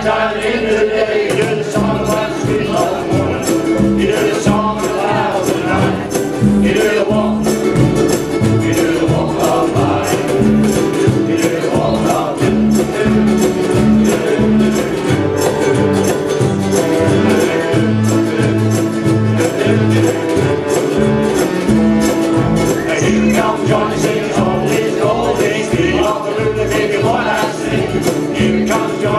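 A ukulele band strumming a song together, a full chordal strum over a steady line of low bass notes.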